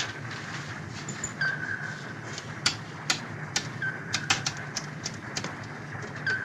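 Submarine sonar pings as a drama sound effect: a short held tone repeating about every two and a half seconds, three times, over a steady low hum with scattered sharp clicks.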